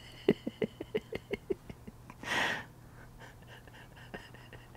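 A man chuckling quietly under his breath: a quick run of short breathy pulses for about a second and a half, then one breath out, followed by a few faint clicks.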